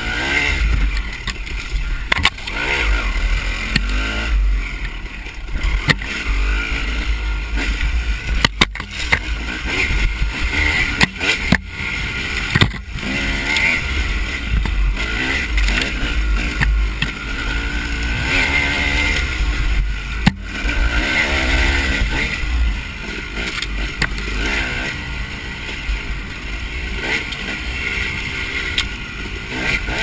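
Dirt bike engine running under load, revving up and down with the throttle as the bike is ridden over rough trail. The audio cuts out for an instant a few times.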